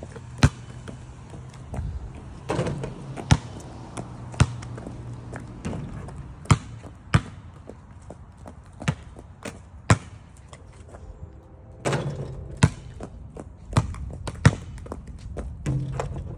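Basketball bouncing on a concrete driveway, sharp single bounces roughly once a second. A couple of times the ball hits a portable hoop's rim and backboard, giving longer ringing impacts.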